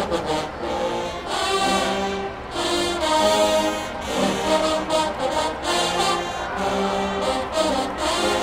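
College marching band playing: brass, trombones among them, holding and changing chords over steady drum hits.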